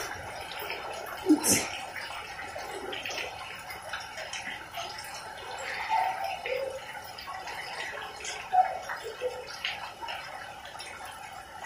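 Steady rain with water dripping and a few short ticks, and faint voices calling now and then.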